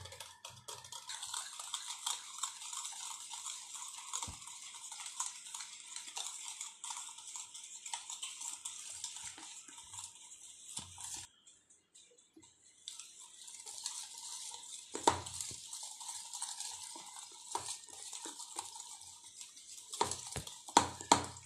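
Metal wire whisk beating cake batter of wheat flour, eggs, oil and sugar in a bowl: a steady scratchy scraping with quick clicks of the wires against the bowl. The whisking pauses briefly about eleven seconds in, and there are a few louder clicks later on.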